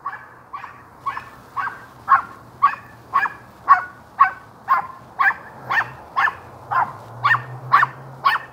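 A small dog barking over and over in short, sharp yaps, about two a second, at a rabbit hidden in the plants.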